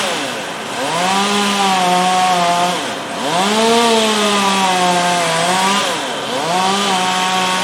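Two-stroke chainsaw revved up to full speed three times, holding each time for a second or two before easing back off.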